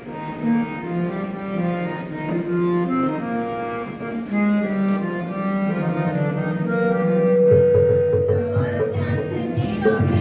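Instrumental music: a melody of held pitched notes, joined about seven and a half seconds in by a deeper bass line and, shortly after, a quick rattling percussion beat.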